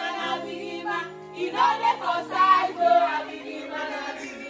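A group of voices singing and chanting along over music whose notes step from one pitch to the next, with the voices loudest around the middle.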